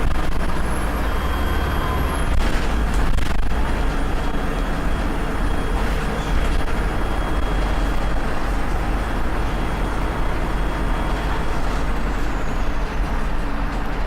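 Volvo B7RLE bus's diesel engine running steadily, with a thin high turbo whistle over the engine note that drops away near the end.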